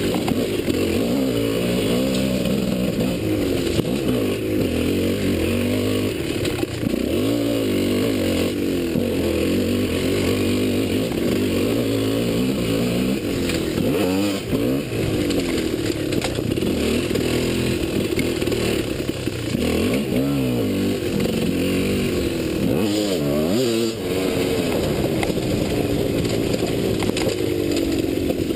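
Dirt bike engine under way, revving up and falling back again and again as the throttle is worked, with a few quick drops in pitch about halfway through and again later on.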